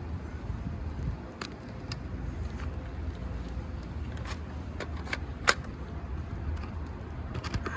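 Scattered sharp clicks and taps of tools prying at asphalt shingles to work an old shingle loose, over a steady low rumble. The loudest click comes about five and a half seconds in.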